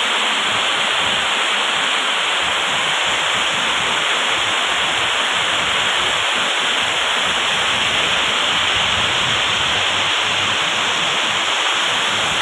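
Heavy rain pouring down in a steady, loud hiss.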